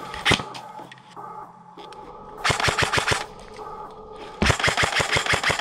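Airsoft gun firing: a single shot, then two short full-auto bursts about two seconds apart, each a rapid run of about a dozen shots a second.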